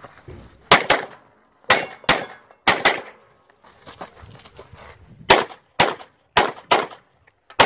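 Handgun fired in quick pairs, about eleven shots in all: three double taps in the first three seconds, a pause of about two seconds, then more pairs.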